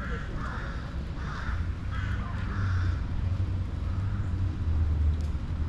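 Crows cawing, about five harsh calls in the first three seconds and a fainter one later, over a steady low rumble.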